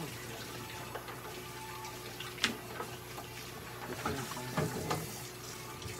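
A brush drawn through a long-haired cat's fur, a few short strokes over a steady hiss, with one sharp click about two and a half seconds in.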